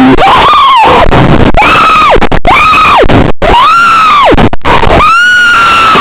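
Harsh, heavily distorted wailing tones at full volume, each rising sharply, holding for about half a second to a second and dropping away, five times over a loud noisy hiss: the soundtrack of a fan-made alternate Emergency Alert System alarm.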